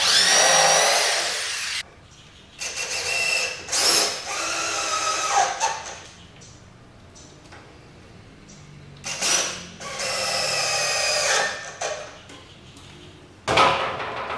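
Cordless drill boring into the top of a pine bookcase in about four short bursts of one to three seconds each, its motor whine rising in pitch as it spins up, with quiet gaps between.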